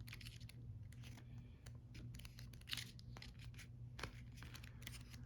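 Faint paper handling: light scattered rustles and ticks as pages of a small booklet are turned, over a low steady hum.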